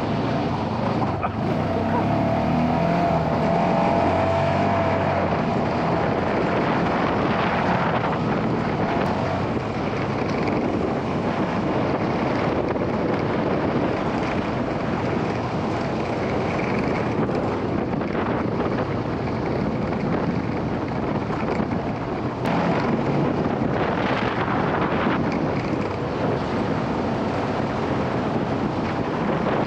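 UTV running along a dirt track, a steady engine-and-road din with wind noise on the microphone.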